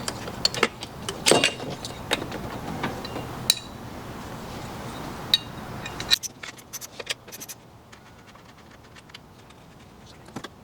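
Metal tools and parts clinking and clicking in an engine bay, a run of irregular sharp clicks that thickens briefly and then dies away to quiet near the end.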